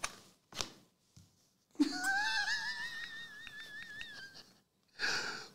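A man's high-pitched, wavering falsetto vocal sound, wheezy and laugh-like, lasting about two and a half seconds and followed by a short breathy exhale near the end. A couple of faint clicks come just before it.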